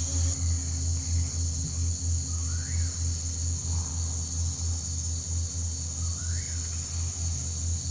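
Steady high chirring of insects, over a low pulsing drone, with two short rising-and-falling calls, one a little under three seconds in and one about six and a half seconds in.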